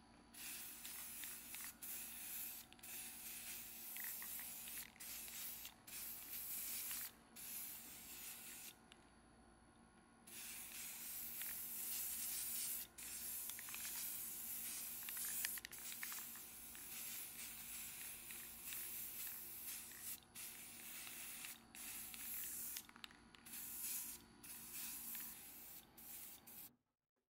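Aerosol spray paint can hissing in a run of short and longer bursts, with a pause of about a second and a half about a third of the way in. The hiss cuts off suddenly near the end.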